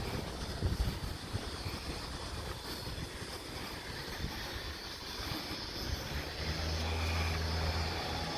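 Wind buffeting on the microphone, then, about six seconds in, a steady low engine drone sets in.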